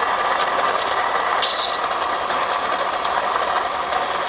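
2004 Toyota Camry engine running, with a steady rattling, bubbling noise from the power-steering and pulley area, like a pot of beans boiling. The owner blames the power steering, which is leaking fluid, and a pulley he has seen wobbling.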